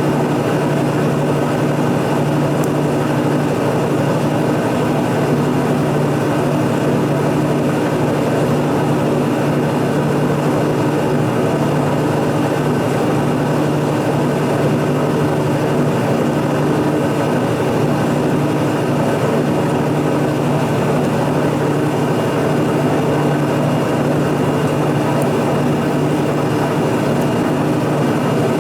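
A shop machine running steadily, a constant mechanical drone with a low hum and a few steady higher tones that do not change.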